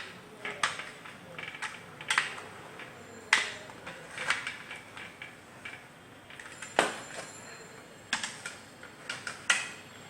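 Scattered sharp clicks and light metallic taps from a screwdriver and blender motor parts being handled while a screw is taken out of the motor housing.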